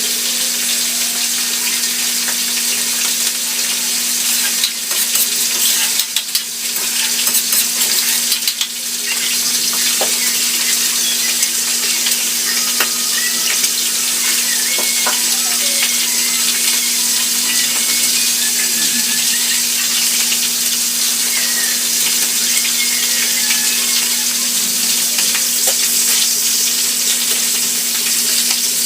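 Food frying in a pan with a steady, dense sizzle, stirred now and then, with a few brief clatters about five to nine seconds in. A steady low hum runs underneath.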